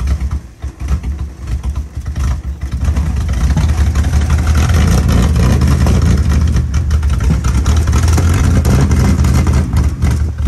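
BMW E30 325i's straight-six engine running just after being started, heard close to its dual exhaust tips: a steady low exhaust note that grows louder about three seconds in and then holds even.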